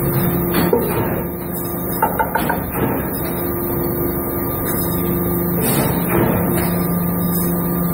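Hydraulic deep-drawing press running with a steady machine hum, and a short run of quick metallic clicks about two seconds in.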